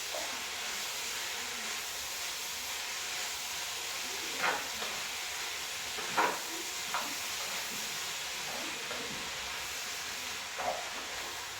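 Beef goulash with freshly added garlic sizzling in a pot, a steady frying hiss, with a few short knocks of a stirring utensil against the pot around the middle and once near the end.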